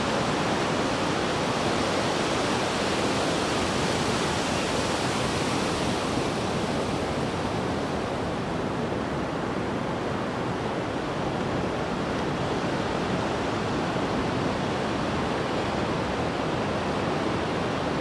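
Ocean surf breaking on a sandy beach, a steady, even rush of noise.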